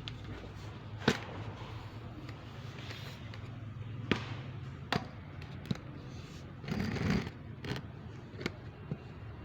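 Scattered sharp knocks and taps of hand tools on the vehicle's diesel fuel tank fittings, about half a dozen, the loudest about a second in, with a brief rougher scraping sound around seven seconds in.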